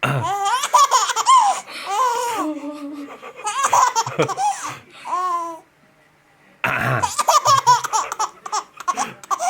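A little girl laughing hard in repeated high-pitched bouts, set off by her father's coughing. The laughter breaks off for about a second past the middle, then starts again.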